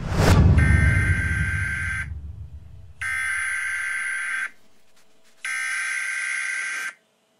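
A deep boom that dies away over about two seconds, then three harsh buzzing bursts of about a second and a half each, evenly spaced. These are mock Emergency Alert System header tones that open an emergency broadcast.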